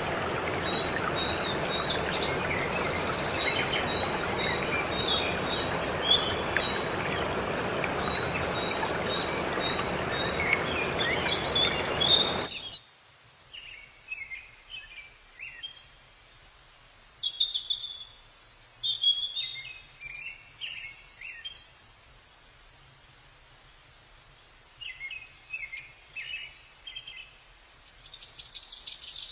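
Waterfall rushing steadily, with small birds chirping repeatedly over it. About halfway through, the water sound cuts off suddenly, leaving only scattered bird chirps against quiet.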